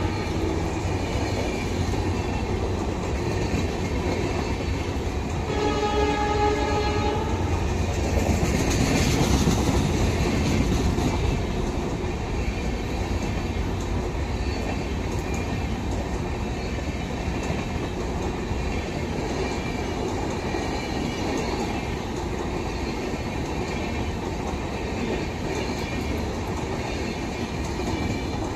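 Passenger coaches of an Indian Railways express train passing close at speed: a steady rumble and rattle of wheels on rail. A train horn sounds once, for about a second and a half, some six seconds in.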